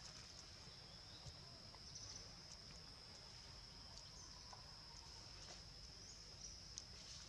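Faint, steady high-pitched insect drone, with a few faint clicks.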